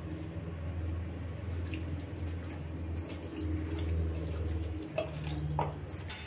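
Raw chicken pieces being mixed by hand with turmeric and salt in a stainless steel bowl: wet squelching over a low rumble, with a few light clicks against the steel near the end.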